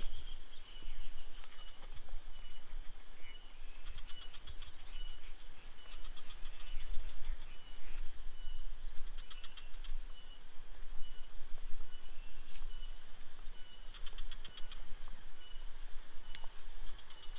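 Insects chirping in an evenly repeating high pulse, with bursts of higher trilling every few seconds, over a low rumble on the microphone.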